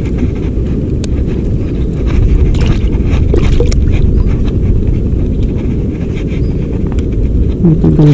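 Low, steady rushing of shallow stream water around the angler's legs and hands, with a few sharp small clicks and splashes as a fish is handled and released. A brief voice near the end.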